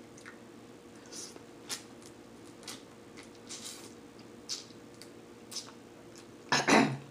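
Close-up eating of snow crab legs: soft, scattered crackles, clicks and squishes as the shell is picked and the meat is sucked out, then a much louder mouth sound near the end.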